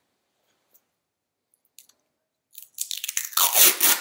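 Masking tape being pulled off the roll in a run of loud ripping strokes, starting about two and a half seconds in after a near-silent start.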